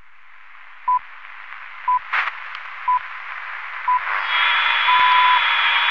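The BBC Greenwich Time Signal pips: short, high, pure beeps one second apart, ending in a longer final pip about five seconds in. Under them runs a hiss of TV static that swells louder from about four seconds in, with a brief crackle of noise about two seconds in.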